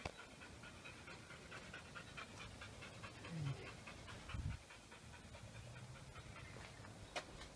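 A dog panting quickly and steadily, faint. Two low thumps come about three and four and a half seconds in.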